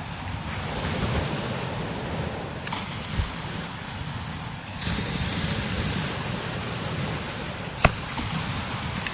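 Strong desert wind blowing steadily, swelling in gusts about half a second in and again around five seconds. There is a soft thump near three seconds and a sharp pop about eight seconds in, which is the loudest moment.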